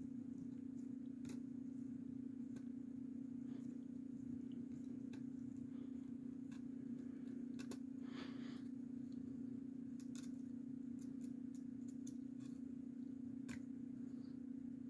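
Faint, scattered clicks and a short scrape of a small screwdriver and fingers on the plastic case and internal module of a handheld radio transmitter as the module's screws are taken out, over a steady low hum.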